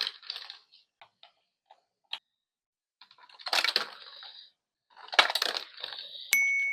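Hard plastic toy pieces clattering and clicking, with two denser bursts of rattling. Near the end a single high ringing ding starts sharply and fades slowly.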